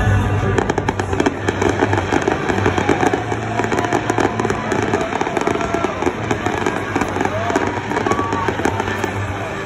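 Aerial fireworks going off overhead: a rapid run of crackling pops, many per second, starting about half a second in and thinning out near the end, with crowd voices underneath.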